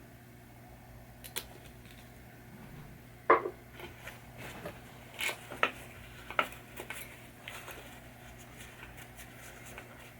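Scattered light clicks and taps of small parts and tools being handled while cleaning a pinball saucer switch, with a handful of sharper knocks, the loudest a little over three seconds in, over a steady low hum.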